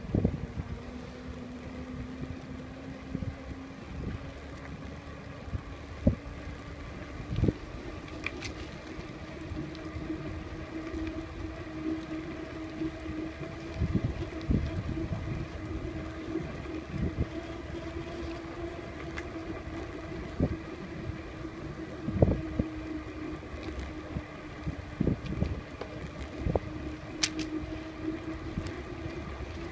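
Bicycle rolling over brick pavers, heard through a handlebar-mounted phone: a steady low rumble with scattered knocks and rattles as the wheels cross the bricks. A steady hum underneath slowly rises in pitch.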